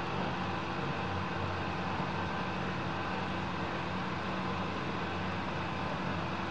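Steady background noise with a constant low hum and no distinct events.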